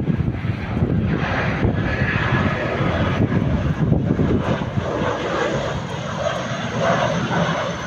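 Airbus A320-family jet airliner passing low on final approach with its landing gear down. Its jet engines give a steady rumble with a faint high whine over it.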